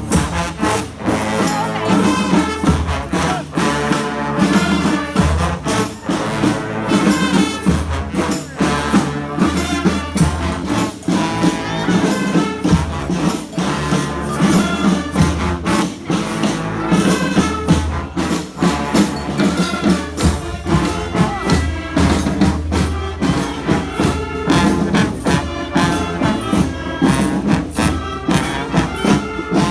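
Street band playing live: brass horns over drums and hand percussion, with a steady beat.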